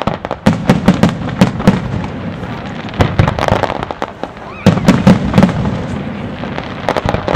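Aerial fireworks display: rapid volleys of sharp firework bangs in quick succession, coming in clusters a second or two apart.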